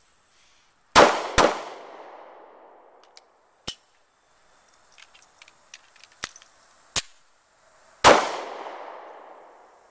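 Walther PPS 9mm pistol fired in a failure drill. Two quick shots about a second in, under half a second apart, then a third shot about eight seconds in, each followed by a long echo. A few fainter sharp cracks come in between.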